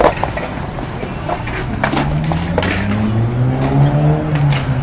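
A sharp skateboard clack on concrete right at the start, then a few lighter board knocks. From about two seconds in, a vehicle engine hums, rising slowly in pitch as it speeds up.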